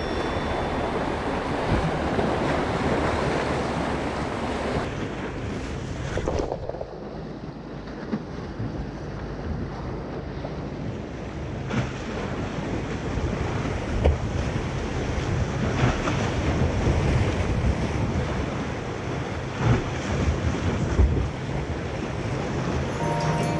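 Wind buffeting the microphone over the steady wash of waves against the shore, with a few short sharp clicks in the second half.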